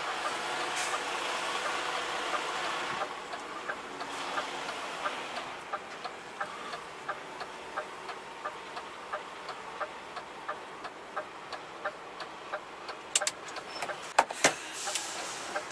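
Turn-signal relay ticking steadily in a DAF truck's cab, about three ticks a second, over the engine's running noise as the truck manoeuvres at low speed. The ticking starts about four seconds in, and there are a few sharp clacks near the end.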